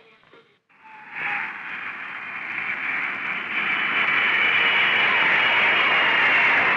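Jet engine noise of a Convair B-58 Hustler's four J79 turbojets as the bomber lands and rolls out: a rushing noise with a thin high whine. It starts about a second in and grows steadily louder.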